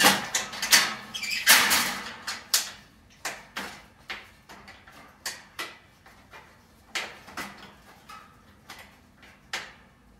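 Sheet-metal chimney of a kerosene heater clinking and scraping as it is lowered and seated back onto the heater: a dense scrape in the first two seconds, then a string of sharp metallic knocks and clicks.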